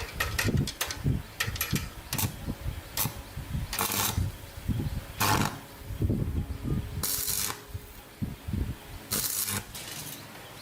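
Workshop hand work on metal parts: irregular clinks and knocks, with four short scraping strokes.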